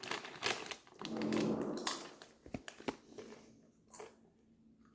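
Crinkling of a Doritos foil chip bag as a hand reaches in, a short low hum about a second in, then a few sharp crunches of a corn chip being bitten.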